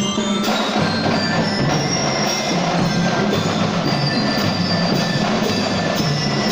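Drum and lyre corps playing: snare and bass drums beating a steady rhythm while bell lyres ring out the melody.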